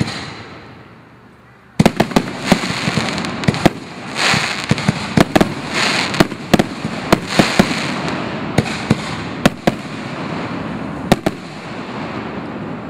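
Consumer firework aerial shells bursting: from about two seconds in, a rapid string of sharp reports over a crackling hiss, with the last loud bangs about eleven seconds in and the crackle fading after.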